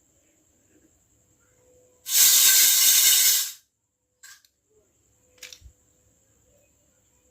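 A loud, steady hiss lasting about a second and a half, cutting off sharply, then a few small clicks and taps.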